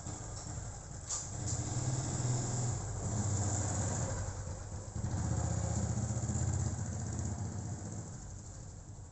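A vehicle engine running, growing louder about a second in and dying away near the end.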